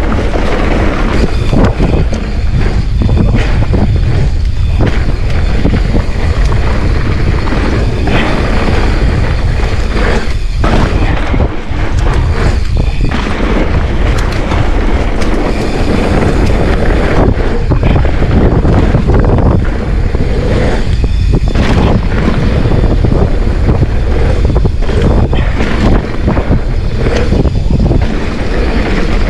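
A mountain bike ridden fast down a dirt trail, with heavy wind buffeting on the microphone and the bike rattling, knocking often over bumps.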